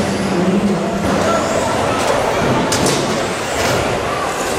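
Radio-controlled stadium trucks racing on a carpet track: motors whining up and down in pitch over the hiss of tyres on carpet, with a couple of sharp knocks, one about two and a half seconds in.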